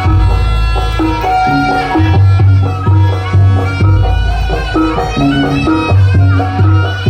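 Traditional Javanese music for a barongan performance: a melody over a steady, repeating drum beat, played loud.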